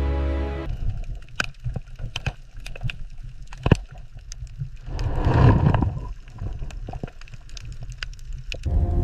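Water sounds: scattered clicks and pops over a low rumble, with a louder gurgling swell about five seconds in. Background music plays at the very start and returns near the end.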